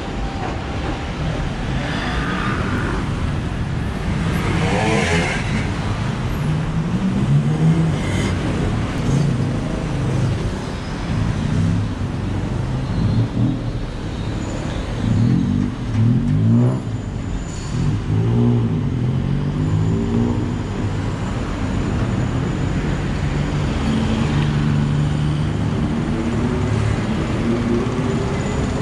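Busy city street traffic: vehicle engines passing one after another, revving up and down over a steady traffic din.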